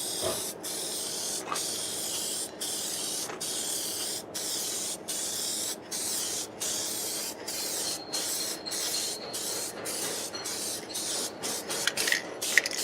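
Headlight lens clear coat being sprayed from a spray nozzle, a steady hiss broken by many brief pauses as it is applied in repeated short passes across the lens.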